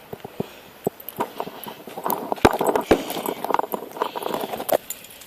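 A run of handling clicks and knocks. They are sparse at first and crowd together from about two seconds in to nearly five seconds, with two sharp louder knocks between two and three seconds in.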